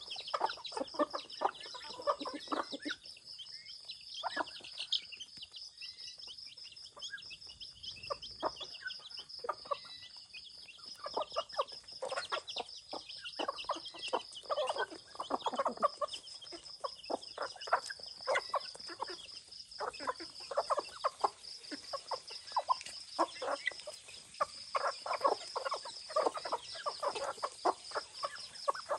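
A flock of chickens clucking in short, irregular calls while foraging, over a steady high-pitched pulsing trill.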